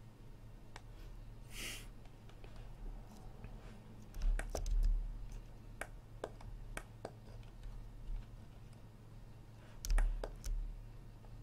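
Scattered clicks of a computer mouse and keyboard, with two denser runs of clicks and soft thumps about four and ten seconds in, over a low steady hum.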